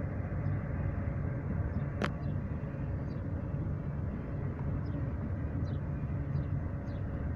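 Union Pacific intermodal freight train rolling past, a steady low rumble of its cars on the track, with one sharp click about two seconds in.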